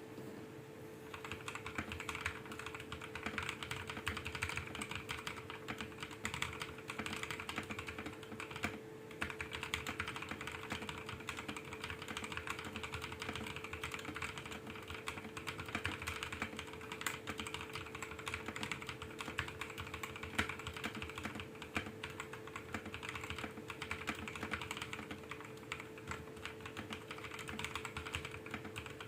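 Continuous fast typing on a mechanical keyboard with lubed NovelKeys x Kailh Cream linear switches, PBT doubleshot keycaps, a polycarbonate plate and a polycarbonate case. The typing pauses briefly about nine seconds in.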